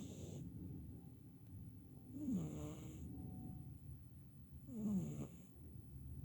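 Rhythmic snoring, a rough, falling breath about every two and a half seconds.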